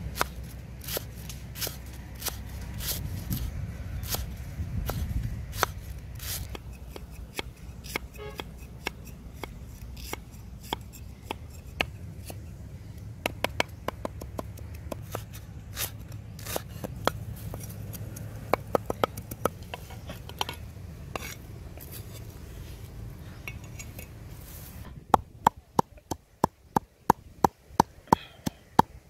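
A cleaver slicing lemongrass stalks on a wooden chopping block: quick, uneven knocks of the blade through the stalks into the wood. About 25 seconds in, this gives way to a wooden pestle pounding sliced lemongrass in a mortar, sharp knocks about three a second.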